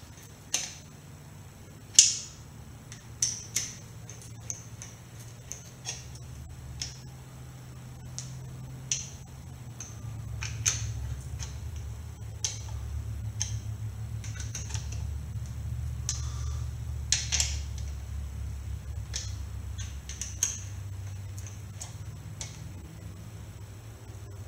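Scattered sharp metal clicks and taps of hand tools on bolts while the main bearing support plate bolts are snugged down on a Mazda MX-5 engine, to squeeze the gasket sealant. A low hum comes up underneath through the middle of the stretch.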